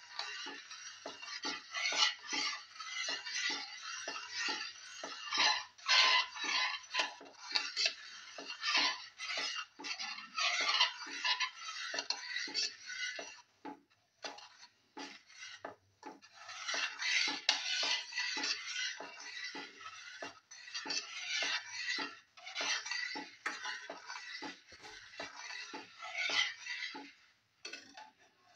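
A perforated metal spoon stirring and scraping around a pan of vermicelli in coconut milk, with quick irregular clinks and scrapes of metal on the pan. There is a short lull about halfway through, and it dies away near the end.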